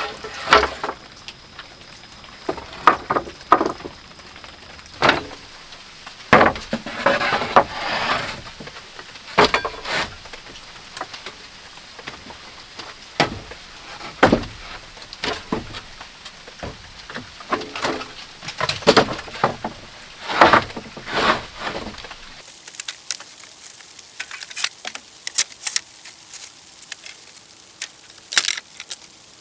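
Irregular knocks, scrapes and clattering of things being handled and set down. About 22 seconds in it changes to lighter, higher clinking and ticking.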